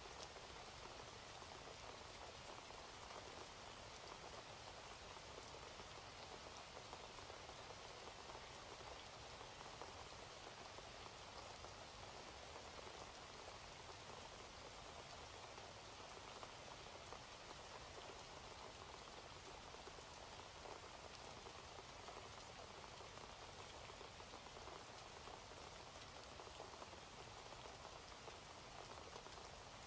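Faint, steady rain falling: an even patter of drops with no change throughout.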